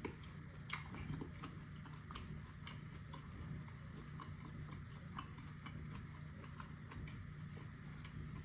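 Soft close-up chewing with irregular wet mouth clicks and lip smacks from someone eating sticky barbecue ribs, over a faint steady low hum.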